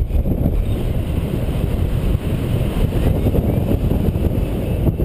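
Wind buffeting the microphone of a camera on a paraglider in flight: a steady, loud low rumble of rushing air.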